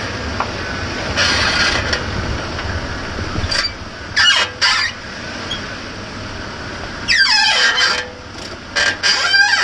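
A 1998 Toyota 4Runner making a squeaky noise of unknown cause: repeated high-pitched squeals come and go over a low rumble, some sliding down in pitch near the end.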